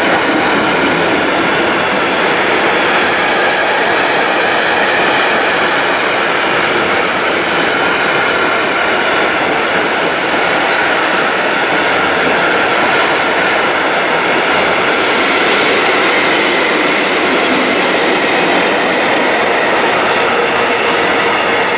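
Container freight train passing close by at speed: a steady loud rumble and rattle of wagon wheels on the rails, with faint steady whining tones mixed in.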